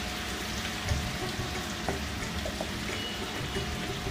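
Chopped tender jackfruit in masala frying in oil in a non-stick pan on a low flame: a steady sizzle, with a few light scrapes and clicks from a wooden spatula stirring it.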